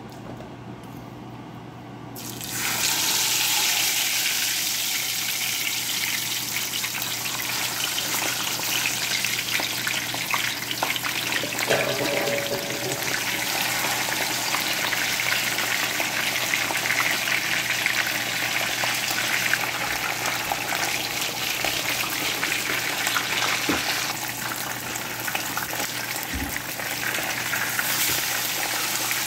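Two turmeric-coated fish laid into hot oil in a stainless steel frying pan. A loud, steady sizzle starts suddenly about two seconds in and keeps going as they fry.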